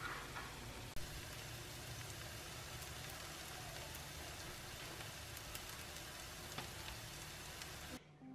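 Kimchi pancake frying in oil in a nonstick pan: a steady sizzle with small scattered crackles and a sharp click about a second in. The sizzle cuts off near the end.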